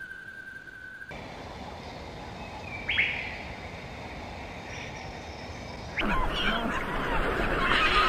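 A steady high whistle-like tone cuts off about a second in. A small songbird then gives one sharp call. About six seconds in, a black-legged kittiwake nesting colony breaks into loud, dense overlapping calling.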